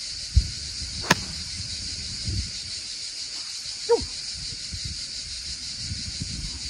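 Golf club striking the ball on a short pitch shot: a single sharp click about a second in. Underneath runs a steady high hiss and gusty wind rumble on the microphone.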